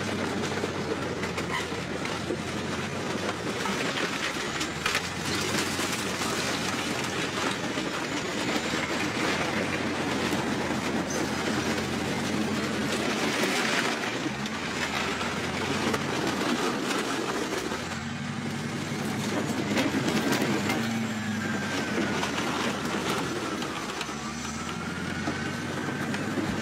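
Caterpillar bulldozer's diesel engine running steadily under load while its steel tracks clatter over a row of motorcycles, crushing them with a continuous crackle and crunch of breaking metal and plastic. A wavering metallic squeal rises and falls near the end.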